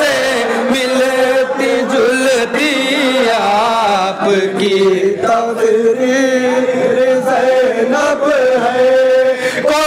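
Men's voices singing a manqabat, an Urdu devotional poem in praise of Bibi Zainab, amplified through a microphone. The melody slides up and down over long held notes.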